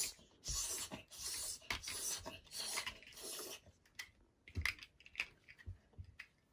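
A run of about five rasping, rustling strokes, then a few light clicks and knocks as large plastic building blocks are handled and pressed together.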